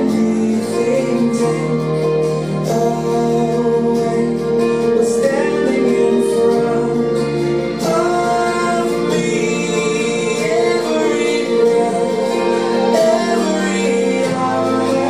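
Recorded music playing: a woman singing over a sustained instrumental accompaniment.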